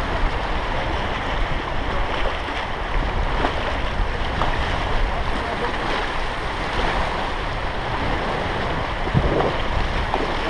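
River water rushing and splashing around a raft, with wind buffeting the microphone and a few faint knocks.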